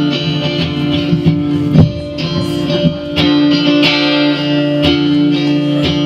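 Live band music: guitars playing an instrumental passage between sung lines, with no voice.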